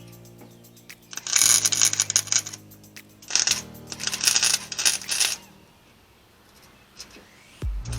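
Electric welding in two bursts of about a second and a half each, the arc crackling, with a steady electrical hum before the first burst.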